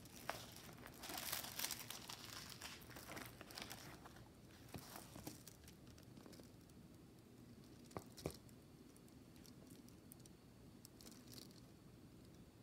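Faint crinkling and rustling as a diamond painting canvas with its clear plastic cover film is unrolled and handled. It is busiest in the first few seconds, with a few light ticks later on.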